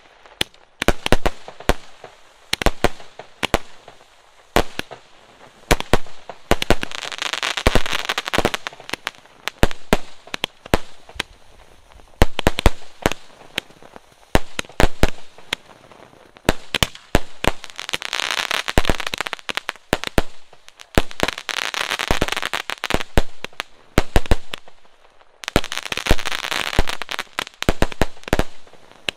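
A 240-shot sky shot fireworks cake firing: a rapid run of bangs, several a second, as shots launch and burst overhead. Three stretches of dense crackling rise over the bangs.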